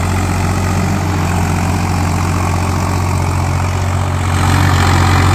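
Swaraj 843 XM tractor's diesel engine running steadily under load while pulling a heavy disc harrow through hard soil. It holds its revs without dropping, with the whistling note typical of Swaraj engines. It gets louder about four seconds in as the tractor passes close.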